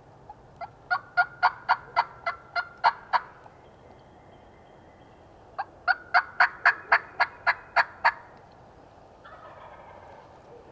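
Turkey yelping: two loud runs of about a dozen quick, evenly spaced notes, about four a second, with a pause between. Near the end a fainter, hazier wild turkey gobble answers.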